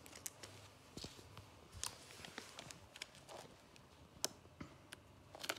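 Faint, scattered clicks and crackles of paper handling: the backing being peeled off a Panini sticker and the sticker pressed onto an album page, with a short cluster of crackles near the end.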